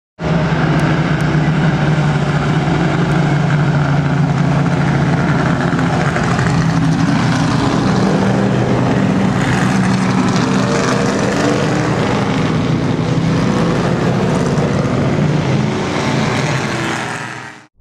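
Vintage race car engines, a C3 Corvette V8 among them, running past at a steady, moderate pace under a caution period. Several engine tones overlap, and the sound cuts off sharply near the end.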